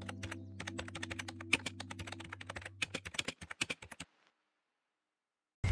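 Keyboard typing sound effect: rapid, irregular key clicks for about four seconds over a low steady tone that fades out around three seconds in.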